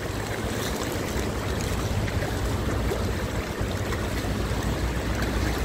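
Floodwater rushing and sloshing around the truck's wheels, with the low steady drone of a heavy truck's diesel engine underneath.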